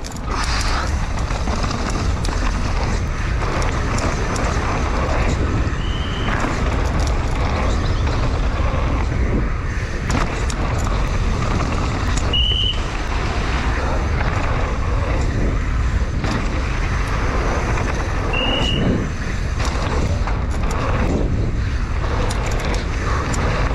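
Downhill mountain bike at race speed on a dirt track: a steady rush of wind and tyre noise with frequent knocks and rattles over bumps. Three short, high squeaks come about six seconds apart.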